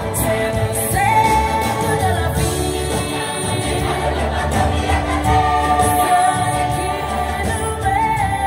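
Music with singing; the sung melody holds long notes of about a second each over full backing music.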